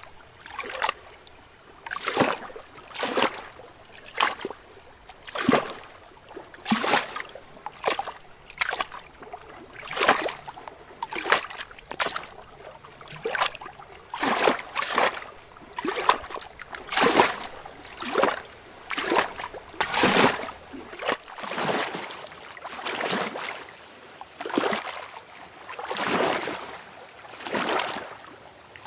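Lake water lapping in small waves, a soft splash about once a second, some swells stronger than others.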